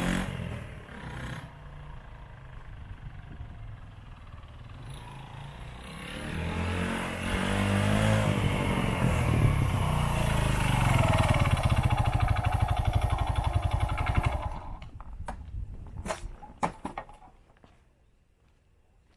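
Suzuki GN125 motorcycle's single-cylinder four-stroke engine as the bike is ridden away and fades, then comes back and grows loud close by, its note rising and falling. The engine sound drops away about fourteen seconds in, followed by a few sharp clicks and knocks.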